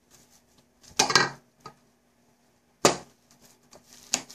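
Metal potato masher knocking and scraping against a stainless steel bowl while mashing boiled potatoes: a few sharp knocks, the loudest about a second in and again about three seconds in, with lighter taps between.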